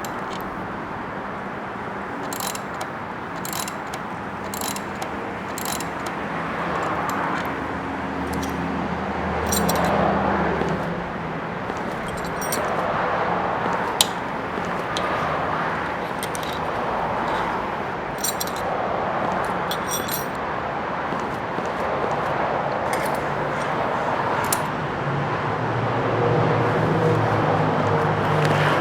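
A steady rumbling background like road traffic, with low humming tones that shift, overlaid by many short, bright metallic jingles and ticks. There is one sharp click about halfway through.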